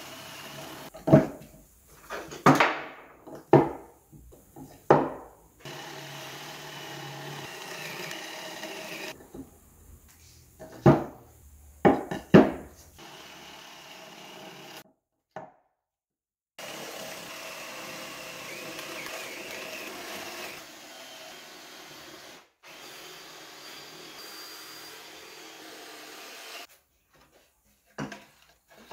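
Cordless drill boring holes through plywood, running steadily in several spells of a few seconds each, mostly in the second half. Loud separate knocks of wood and tools come in between, mostly in the first half.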